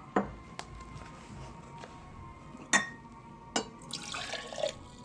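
Hot water being poured into the container of homemade chickpea yeast to rinse the last of it out, with several sharp knocks of the container and a short splashing pour about four seconds in.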